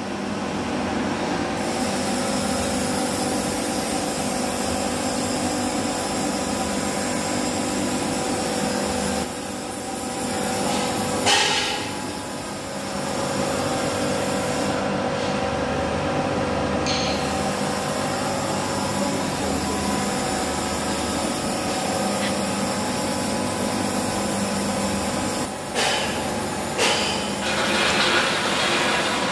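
Dry garlic peeling machine running, a steady mechanical hum with a wide hiss over it. Near the end come a few clattering knocks as garlic is tipped into its stainless-steel hopper.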